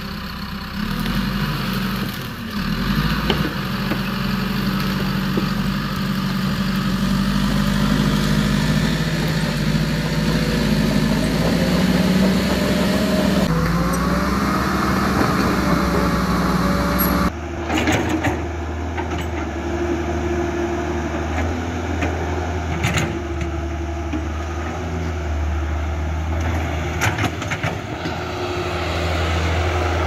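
RC toy construction machines running with a steady engine-like sound, first the RC bulldozer while it pushes soil. About 17 s in the sound changes abruptly to a lower hum with scattered clicks as the Huina 1550 RC excavator works.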